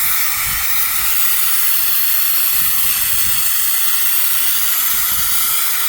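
Compressed-air spray gun hissing steadily as it sprays Lizard Skin sound-deadening coating, running at low air pressure.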